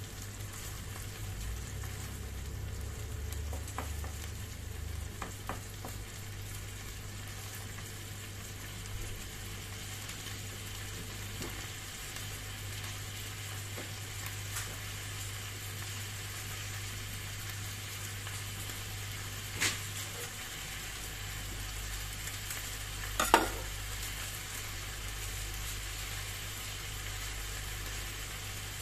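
Canned corned beef with onions sizzling in a non-stick frying pan: a steady frying crackle over a low hum. Two sharp clicks stand out about two-thirds of the way in and again a few seconds later, the second the loudest.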